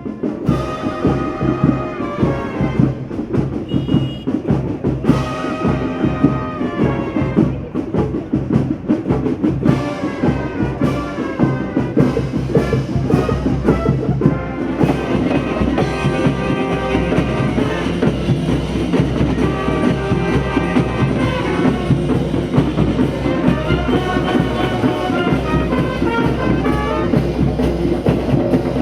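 Street brass band playing: trumpets and trombones over drums keeping a steady beat. The music cuts in abruptly out of silence.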